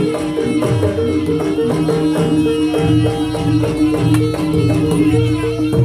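Live jaranan music from a Javanese gamelan-style percussion ensemble: drum strokes over a steadily repeating pattern of pitched notes, with lower ringing tones beneath.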